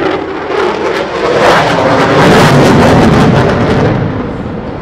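F-16's afterburning F110-GE-129 turbofan making a close pass in afterburner: loud jet noise with a harsh crackle that swells about a second in, peaks in the middle and fades as the jet pulls away.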